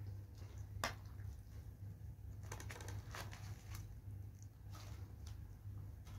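Fresh grape leaves rustling and crinkling as a stack is handled and pressed into a pot of water, with scattered soft clicks and one sharper click about a second in, over a steady low hum.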